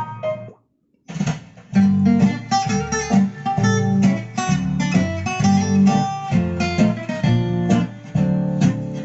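Music streamed over Bluetooth playing through a converted EH Holden car radio and its 4-channel amplifier. A piano-led track stops about half a second in, and after a short silence a strummed acoustic guitar piece with a steady low bass pulse starts.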